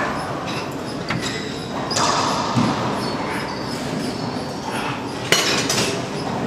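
Racquetball rally: several sharp hits of the ball off racquets and the court walls, echoing in the enclosed court, with the loudest hit about five seconds in, over a steady background rumble.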